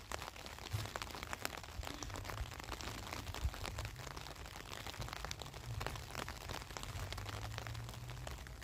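Faint rustling and small clicks of cloth and cord being handled, over a low steady rumble.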